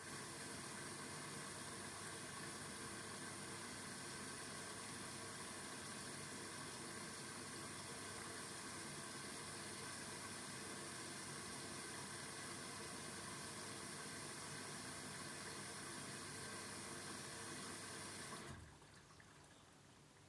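Arçelik washing machine taking in water: a steady rush of water filling the drum, which cuts off suddenly near the end.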